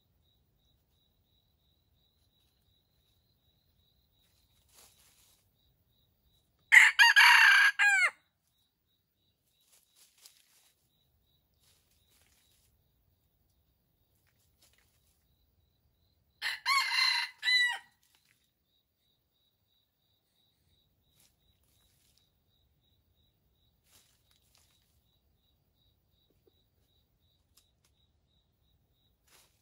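Red junglefowl rooster crowing twice, short crows that cut off abruptly, about ten seconds apart, the second quieter than the first.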